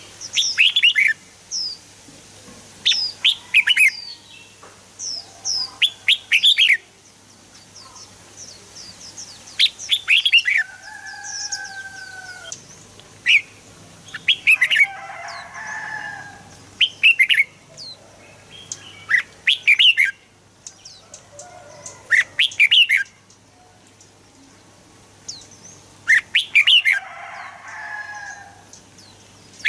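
Red-whiskered bulbul singing: short, loud phrases of quick chirping notes repeated every couple of seconds, with a few softer, lower warbling calls between them.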